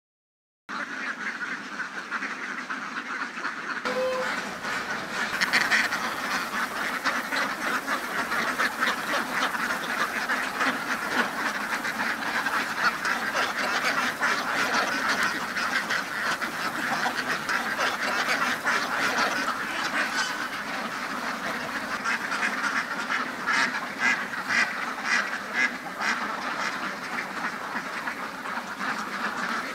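A large flock of laying ducks quacking, many calls overlapping into a continuous din that starts less than a second in.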